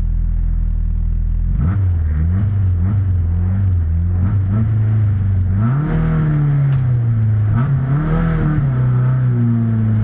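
Car engine running under load, its pitch climbing and dropping again and again as it revs through an autocross course. It holds a steady drone for the first second and a half.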